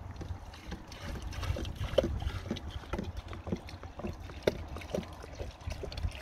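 1:1 sugar syrup glugging out of an upended plastic bottle and splashing onto hive frames, in a run of irregular glugs and pops. Wind rumbles on the microphone underneath.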